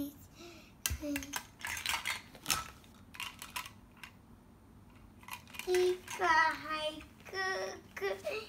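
Plastic toy food pieces clicking and clattering against each other and a plastic basket as a child rummages through them. In the last few seconds a young girl's voice sings out wordless sing-song sounds.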